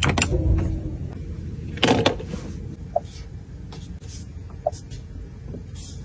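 Porsche Taycan cabin sounds: a small electric motor whir fades out just after the start and the gear selector clicks, then a louder clunk comes about two seconds in. After that, short soft beeps sound about every second and a half over a low steady hum.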